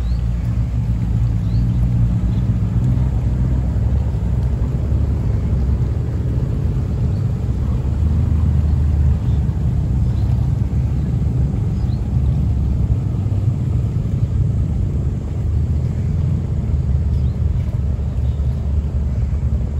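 Bumboat engine running with a steady low rumble as the boat moves off close by.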